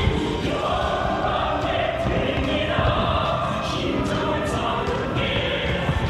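A choir singing a song with musical accompaniment, the voices holding long notes.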